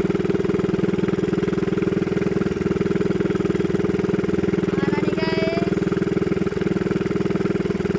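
Small fishing boat's engine running steadily at constant speed, a dense, even hum.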